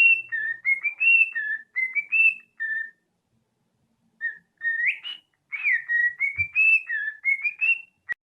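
Pet parrot whistling a tune in short, clear notes that step and glide upward, with a silent break of about a second partway through.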